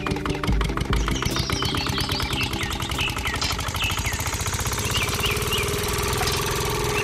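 Miniature model engine running with a fast, even chugging as it drives a small water pump. Birds chirp in the background.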